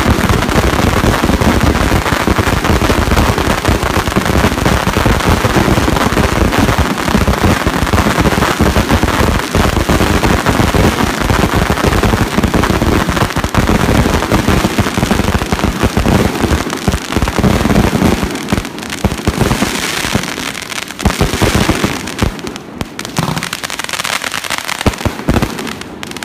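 Strings of Chinese firecrackers going off in a dense, continuous barrage of rapid bangs, thinning into scattered pops over the last several seconds.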